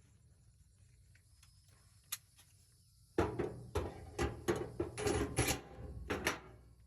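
A single sharp click, then a quick, irregular run of about eight loud knocks and clunks lasting about three seconds.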